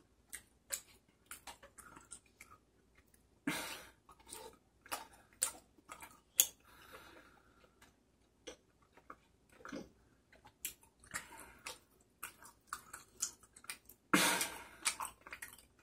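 Close-up eating sounds of chewy tteokbokki rice cakes: soft chewing and wet mouth noises, with scattered short clicks as a pick scrapes and taps in a paper cup of sauce, and a couple of short louder rustles.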